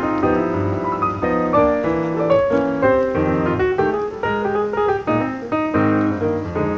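Background piano music: a steady flow of quick piano notes and chords.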